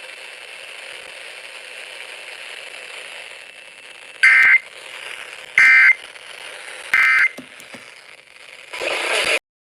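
Steady radio hiss, then the Emergency Alert System end-of-message signal: three short, identical two-tone data bursts about 1.4 s apart, closing the Pennsylvania required monthly test. A brief burst of static follows near the end before the sound cuts off.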